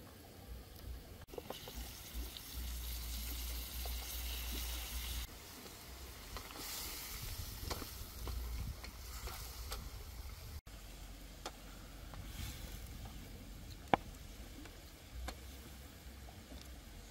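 Pieces of cow tail sizzling as they are tipped into a hot wok of chillies over a wood fire. The hiss starts suddenly about a second in, is loudest for the first few seconds, then settles to a fainter sizzle, with small crackles from the fire and one sharp click late on.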